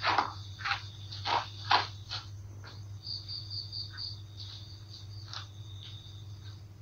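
Crickets chirping in a steady high trill, with a quick run of pulsed chirps about three seconds in, over a low steady hum. A few short sharp noises come in the first two seconds.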